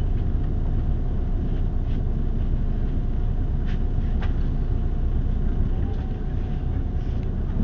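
Inside a moving city bus: steady low rumble of the engine and road, with a faint steady whine and a couple of light clicks about halfway through.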